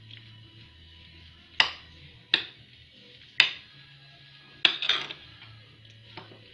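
A utensil clinking sharply against a bowl about five times, a second or so apart, with a fainter clink near the end, while cottage-cheese filling is being mixed.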